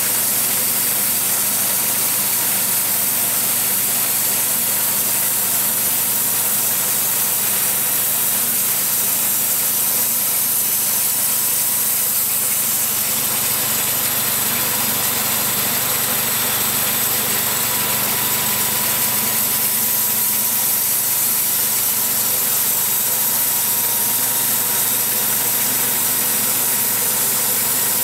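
Small gas engine of a portable bandsaw mill running steadily while the band blade cuts lengthwise through a white ash log.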